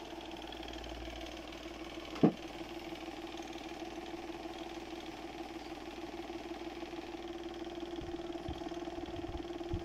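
A steady mechanical hum holding one low tone, with a single short sharp sound a little over two seconds in.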